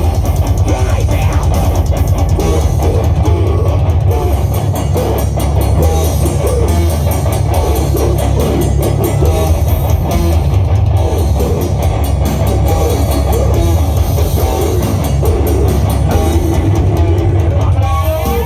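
Rock band playing, with guitar and drum kit over a strong bass.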